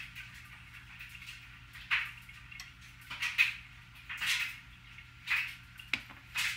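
Olive oil poured from a small bowl into a frying pan: soft swishing swells about once a second over a low steady hum, with a sharp click of bowl or pan handling near the end.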